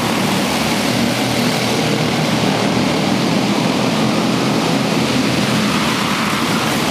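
A pack of quarter midget race cars running together, their single-cylinder Honda 160 engines making a steady, dense engine noise as the field circles the track.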